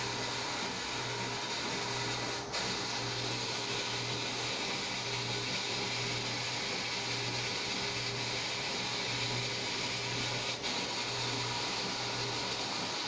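A steady mechanical hum with a soft hiss, the low hum slowly swelling and fading every second or two.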